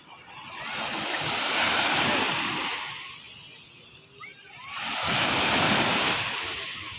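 Small sea waves breaking and washing up the shore twice, each surge swelling up and fading away over a couple of seconds.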